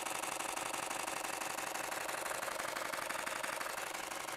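Canon EOS R6 mechanical shutter firing a continuous burst in high-speed continuous drive mode: a steady, rapid run of even shutter clicks.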